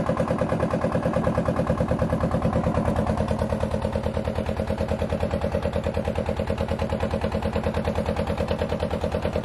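Fishing boat's engine running steadily with a rapid, even thumping of about eight beats a second.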